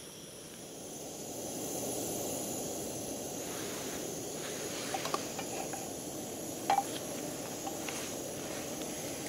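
Gas canister stove burner hissing steadily under a frying pan of cooking flatbread, growing louder about a second in. A few light knocks of a wooden spatula on the pan come in the second half.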